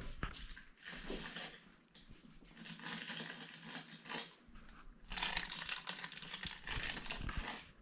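A bag being opened and handled: irregular crinkling and rustling in three stretches, the longest near the end.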